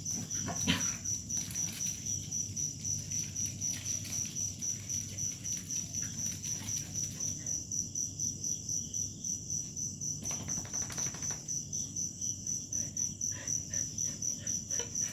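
Crickets chirping steadily in a high, even pulsing trill of about four or five pulses a second.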